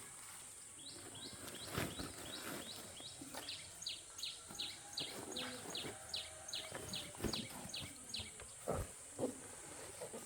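A bird calling a long run of short, high, falling notes, about three a second, that stops near the end, over a steady high-pitched hiss. A few soft knocks.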